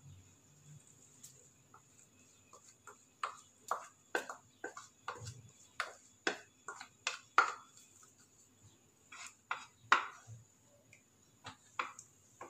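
Wooden spoon knocking and scraping against a small plastic bowl to tap ginger paste out into a pan of sugar syrup. The knocks are sharp and irregular, about two a second, starting about three seconds in.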